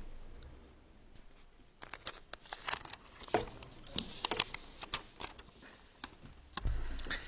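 Sheets of paper rustling and being shuffled on a desk close to a microphone: a string of short, crisp crackles and taps, with a low bump near the end.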